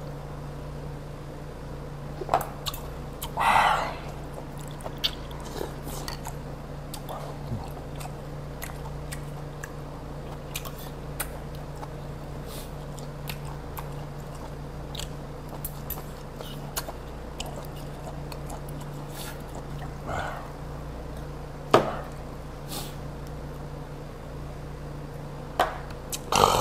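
Close-miked eating: chewing, with scattered sharp clicks of chopsticks and spoon on dishes, over a steady low hum. A few louder short noises come near the start, about two-thirds through and at the very end.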